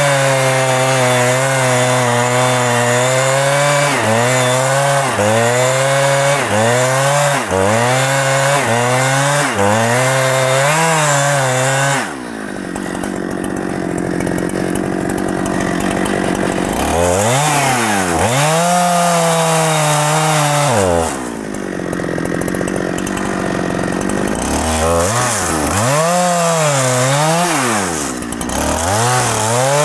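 Two-stroke chainsaw cutting into the wood of a large rain tree, its engine pitch wavering as it bogs and recovers under load. About twelve seconds in it drops back to a steady idle. It revs up and cuts again for a few seconds, idles once more, then revs up again near the end.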